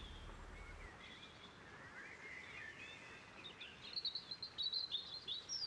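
Faint bird chirps over a quiet woodland ambience, short twittering calls that become busier about four seconds in.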